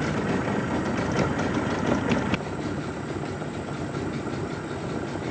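Small river boat's outboard motor running at low speed, a steady rumble that drops a little in level about two seconds in.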